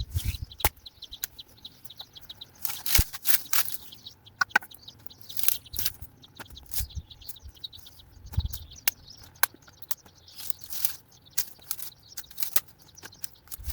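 Dry brambles and cuttings crackling and rustling as they are gathered up by hand, with twigs snapping in irregular bursts.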